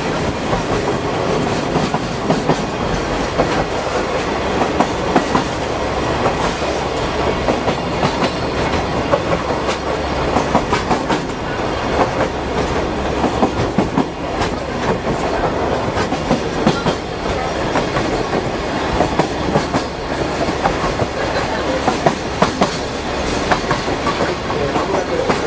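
Hozukyo sightseeing trolley train running along the track: a steady rolling rumble with wheels clattering and knocking irregularly over the rails.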